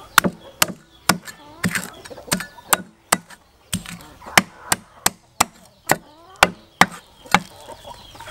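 Steel cleaver chopping through a whole fish and striking a wooden chopping block: a steady run of sharp chops, about two a second.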